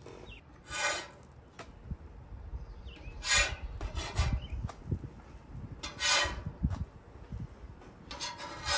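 Metal spatula scraping across the steel top of a flat-top griddle as pancakes are flipped: about five short scrapes a second or two apart.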